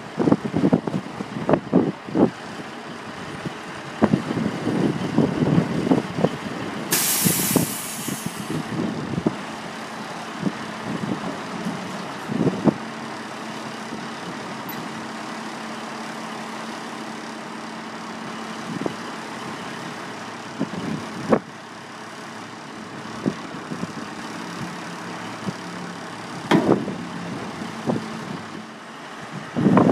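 Semi truck engine idling steadily, with a loud short hiss of released air about seven seconds in. Irregular low thumps come and go, mostly in the first several seconds and again near the end.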